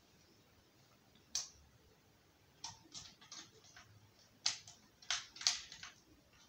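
Light clicks and taps of wooden toy train track and a toy station being handled and fitted together: a single click, then two quick flurries of taps.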